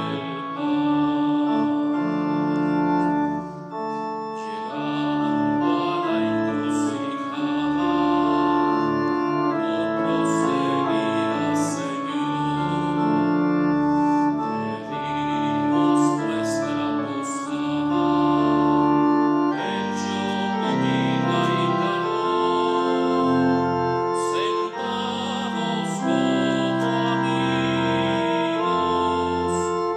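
A slow hymn played on organ in sustained chords that change every second or two.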